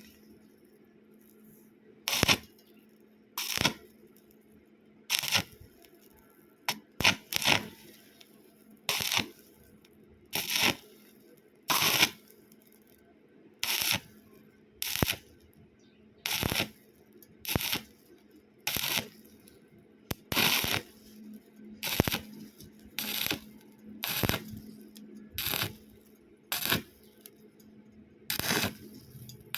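Repeated short bursts of a welding arc, each under half a second, struck about every second and a half, as in stitch-welding to bridge a wide gap, over a steady low hum.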